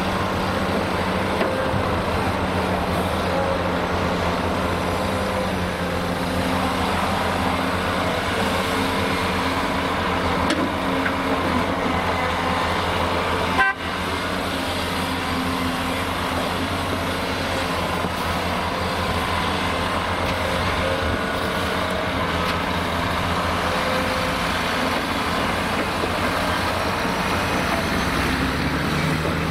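Heavy diesel engine of a Volvo EC480D L crawler excavator running steadily under load as it digs and swings, with several held engine tones, and a tipper truck's engine running alongside. A short click and break in the sound comes about halfway through.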